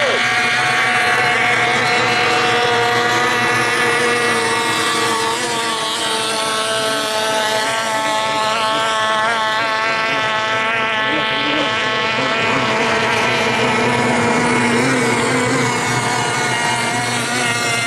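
A pack of 500cc modified racing hydroplanes' two-stroke outboard engines running flat out together, several high-pitched engine notes overlapping in a steady whine. The top end thins a little around the middle as the boats run further off.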